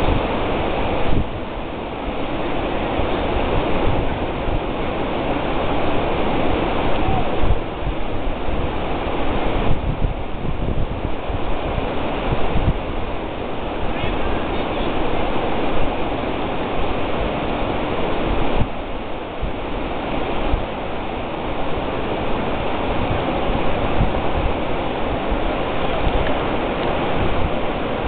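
Pacific surf breaking on a sandy beach, a steady rushing that swells and eases every few seconds, mixed with wind rumbling on the microphone.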